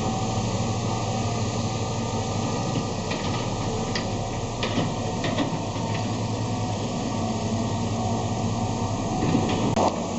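Steady rumble and hiss of a moving vehicle, with a few light knocks around the middle and near the end.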